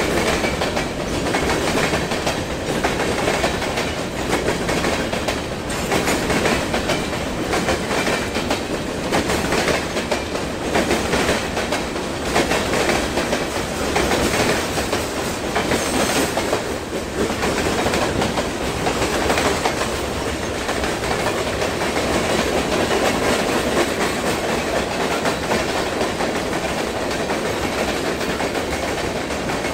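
A long freight train's hopper cars rolling steadily past, their steel wheels clickety-clacking on the rails without a break.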